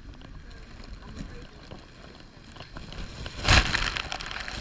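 Low rumble of wind on the microphone, with a loud rustle of the camera being handled and moved about three and a half seconds in.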